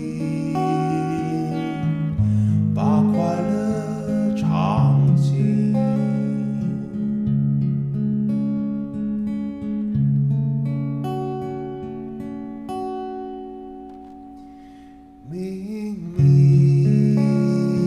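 A man plays an acoustic guitar and sings into a microphone with reverb added. A held chord dies away about two-thirds of the way through, and the guitar and voice come back strongly near the end.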